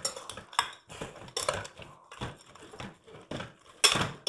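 Metal spoon stirring raw mutton head pieces, onions and spices in a pressure cooker: irregular clinks and scrapes of spoon against the pot, several a second, loudest about four seconds in.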